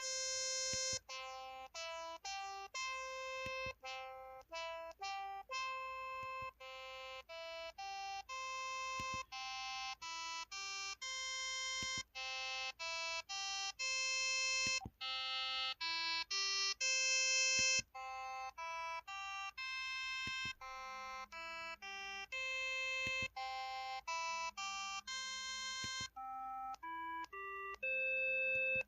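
KTF X3500 mobile phone keypad button tones: a string of short electronic beeps at changing pitches, coming one after another a little under two a second, like the notes of a tune.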